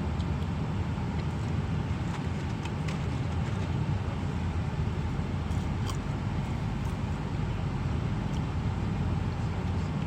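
Inside a moving car's cabin: steady low road and engine rumble, with a few faint clicks.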